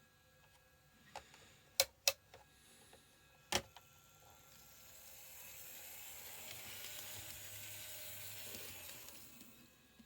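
Kato N-scale EF64 1000-series model electric locomotive running along the track: a few sharp clicks in the first few seconds, then its soft motor and wheel sound swells as it passes and fades again. It runs without any odd noise.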